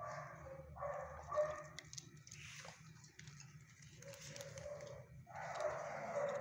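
Shelter dogs barking in the kennels, in bouts of about a second with quieter gaps between; the loudest bout comes near the end.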